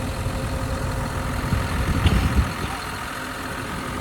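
Farm vehicle engine idling with a rough low rumble, easing slightly about two and a half seconds in.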